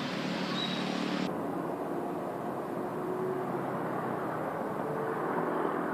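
Steady outdoor background rumble of distant road traffic, with no distinct events. A high hiss over it drops away suddenly about a second in.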